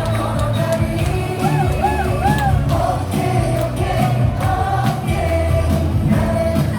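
Baseball stadium cheer music over the PA, with a crowd of fans singing along.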